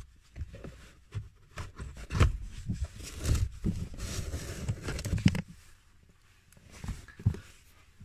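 A pleated cabin air filter being slid out of its plastic housing and set down on a ribbed rubber floor mat: irregular scraping and rustling with light knocks of the filter's frame, then a couple of sharper taps near the end.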